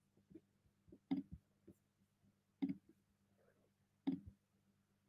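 Faint clicks of a computer mouse or trackpad while the screen share is switched: a handful of short clicks, the clearest three about a second and a half apart, over a faint low electrical hum.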